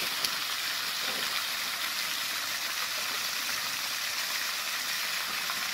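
Park fountain running, its water jets spraying and splashing back into a tiled basin and onto wet paving, a steady hiss of falling water.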